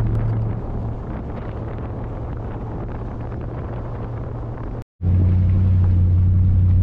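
A GMC Yukon Denali driving on a dirt trail, heard from a camera mounted on the outside of the vehicle: a steady low hum with tyre and wind noise. The sound cuts out for a moment about five seconds in and comes back louder.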